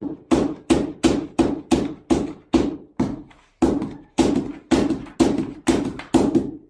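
A steady run of sharp knocks, nearly three a second, each dying away quickly, with a brief pause a little past halfway.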